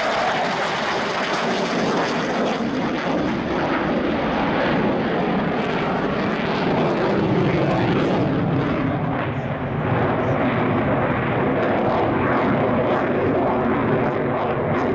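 Dassault Rafale C fighter jet's twin Snecma M88 turbofans running loud and steady through a display manoeuvre, with the pitch sliding down partway through as the jet moves away.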